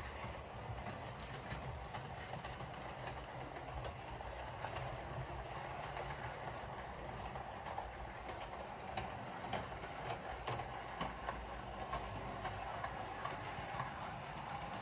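Model train running on the layout: a steady whir from the locomotive's motor and wheels, with scattered clicks as the wheels pass over rail joints, more frequent in the second half.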